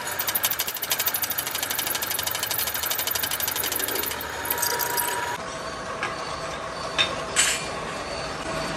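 Drill press cutter machining a steel hub plate, with a rapid, even, rhythmic chatter. About five seconds in this gives way to a quieter steady running of the machine, with two sharp metal clinks near the end.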